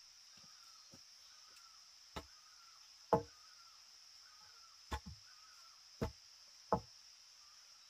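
Wood being chopped: five sharp strikes at uneven intervals, the loudest about three seconds in.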